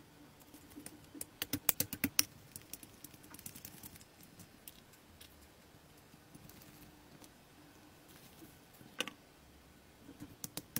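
Tweezers and tiny metal parts clicking and tapping against a scale-model V8 engine's metal casing: a quick flurry of sharp clicks about a second in, then a few scattered clicks, one near the nine-second mark and a few more near the end, over a faint low hum.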